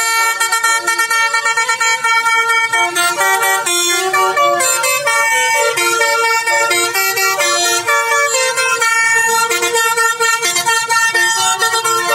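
Telolet multi-tone horn playing a rapid melody of short stepped notes, honked continuously and loud.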